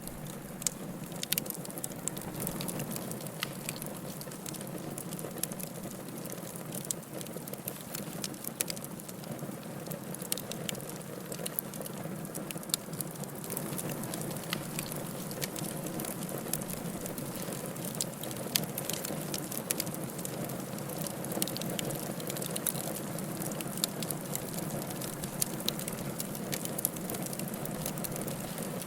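Firewood burning in a fireplace, crackling with frequent irregular sharp pops over a steady hiss of the flames.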